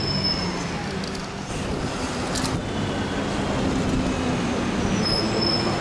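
Bus engine running and street traffic noise, heard from the open upper deck of a sightseeing bus, with a brief high-pitched squeal near the end.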